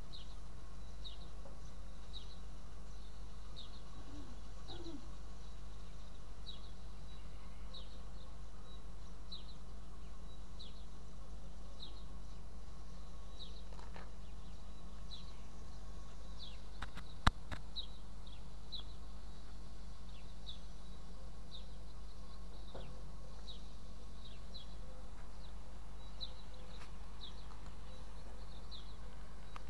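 A small bird calling, one short high chirp about once a second, over a steady low hum. A single sharp click a little past halfway is the loudest sound.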